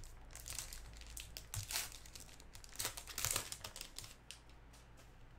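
Plastic wrapper of a baseball trading-card pack being torn open and crinkled by hand: irregular crackling rustles for about four seconds, loudest around two and three seconds in, then dying away.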